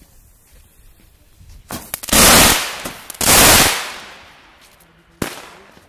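Fireworks going off: a few small cracks about two seconds in, then two loud bursts about a second apart, each lasting over half a second before dying away, and a single sharp bang near the end.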